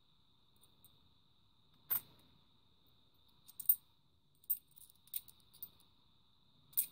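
Seven-sided 50p coins clicking against one another as they are shuffled in the fingers: several short, sharp metallic clinks spaced irregularly, the first about two seconds in, over a faint steady high-pitched whine.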